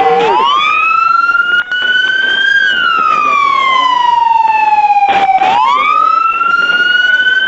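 Police car siren on a slow wail: the pitch climbs quickly, sinks slowly over about three seconds, then climbs again.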